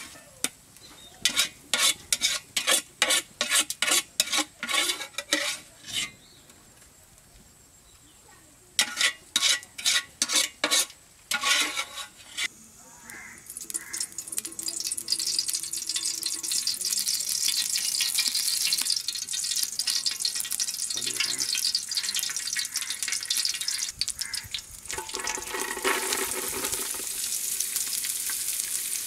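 A slotted metal spatula scrapes and taps scrambled egg off a metal plate in quick strokes for about twelve seconds, with a pause in the middle. Then oil in a hot aluminium pot starts to sizzle steadily, and the sizzle grows louder near the end as chopped green beans go into the oil.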